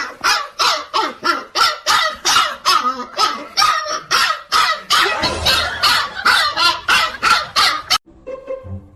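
Dog barking rapidly and without pause, about three barks a second, until the barking cuts off abruptly near the end.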